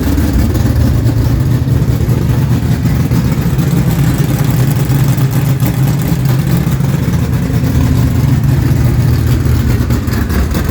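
A 430-cubic-inch small-block Ford V8 race engine running loudly at a steady speed, its pitch holding level with only a slight swell midway.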